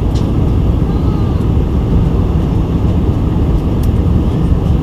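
Steady low rumble of a Boeing 747-400 cabin in flight: airflow and the four Pratt & Whitney PW4056 engines heard from inside the passenger cabin.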